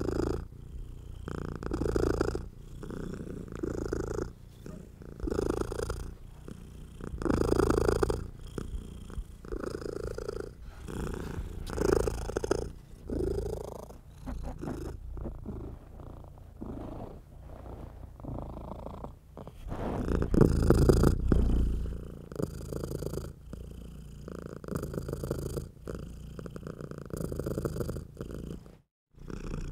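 Domestic cat purring steadily, a low rumble that swells and fades with each breath about every two seconds. It breaks off briefly near the end.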